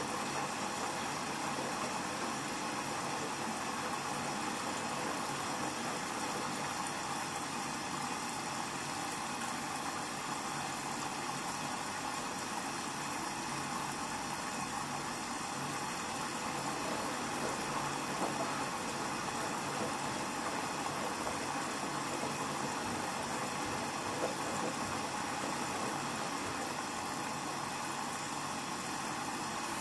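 Hoover washing machine running steadily at the start of the first rinse of its rapid cycle, an even mechanical hum with a high whine and no pauses.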